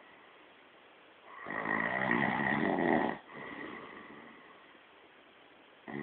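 A person snoring: one loud, rasping snore lasting under two seconds, then a quieter breath out, with the next snore starting near the end.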